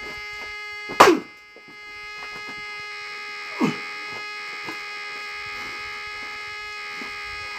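An axe striking a knotty oak round: one hard blow about a second in, a smaller knock around three and a half seconds, and another blow right at the end, the knot keeping the round from splitting. A steady buzzing hum runs underneath.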